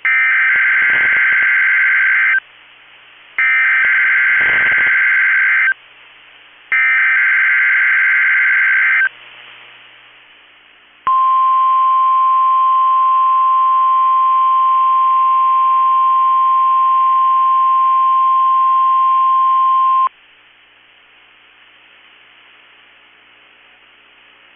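NOAA Weather Radio Emergency Alert System required weekly test: three loud bursts of SAME header data, each a harsh digital screech about two seconds long, with a second's gap between them. About two seconds later comes the steady 1050 Hz weather radio warning alarm tone, held for about nine seconds and then cut off, leaving faint radio hiss.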